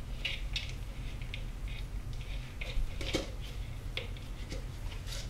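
Thin plastic soda bottle crinkling and ticking as it is handled with a small camera inside it, a scatter of light clicks with one sharper knock about three seconds in.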